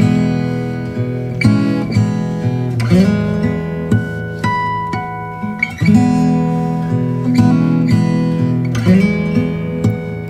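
Instrumental background music: chords struck every second or two and left to ring and fade.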